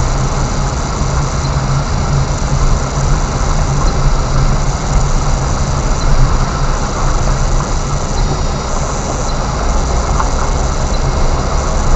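Car driving along a dirt road, heard from inside the car: a steady low engine hum under an even rumble of tyres on the unpaved surface.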